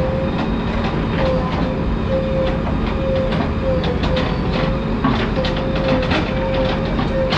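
JCB 3DX backhoe loader working: its diesel engine running steadily with a continuous whine and repeated metallic clanks and knocks from the machine as it digs and loads mud.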